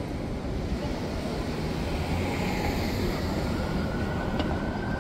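City street traffic: a steady low rumble of passing vehicles, with a faint whine starting about three and a half seconds in and a brief click near the end.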